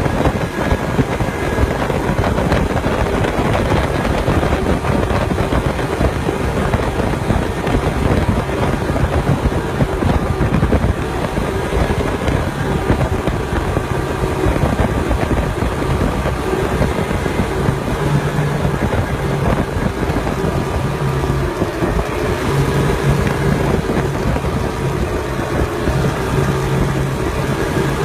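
Motorcycle engine running hard at steady revs as the bike skims across open water, with wind noise over the microphone.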